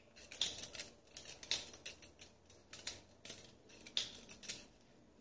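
Butterfly knife comb being flipped open and closed by hand, its handles clacking against each other and the comb in a string of irregular sharp clicks.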